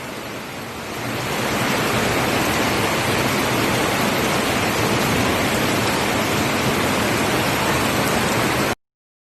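Rushing floodwater from an overflowing stream: a steady rush of water that swells about a second in and cuts off suddenly near the end.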